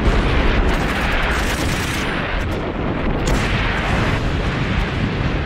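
Battle sounds of artillery shell explosions and gunfire: a continuous heavy rumble, loudest at the start, with several sharp cracks through it.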